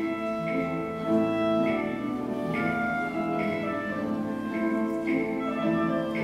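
Youth symphony orchestra playing, bowed strings and woodwinds holding layered chords, with new accented notes coming in about once a second.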